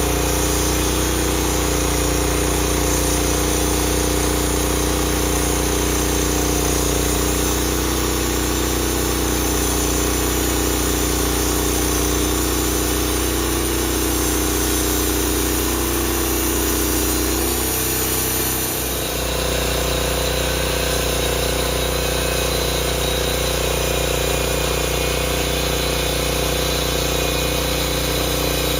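An engine running steadily. About eighteen seconds in, its note shifts and dips briefly before it settles again.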